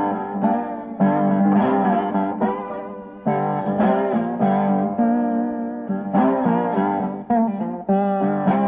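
Guitar music: plucked notes that ring out and fade, some sliding in pitch.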